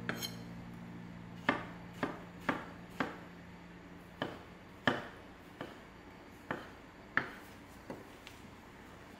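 Chef's knife dicing a tomato on a wooden cutting board: the blade knocks the board about a dozen times, sharp short clacks spaced roughly half a second to a second apart.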